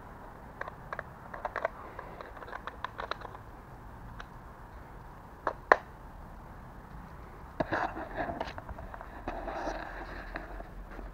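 Scattered light clicks and ticks with one sharper click a little past halfway, then a few seconds of rustling and knocking in the second half: handling noise from a handheld camera being moved about.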